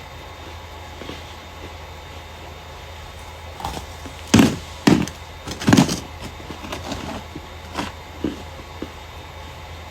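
Starch being crushed close to the microphone: sharp crunches and crackles, three loud ones in quick succession near the middle, with a few softer crunches before and after.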